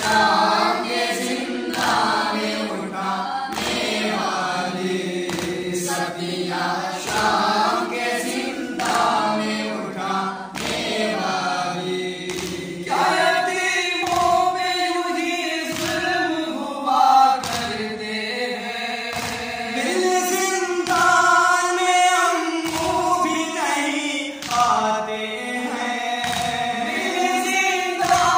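Male voices chanting a noha, a Shia lament, together without instruments, its texture shifting about halfway through. A regular soft thump keeps time under the voices.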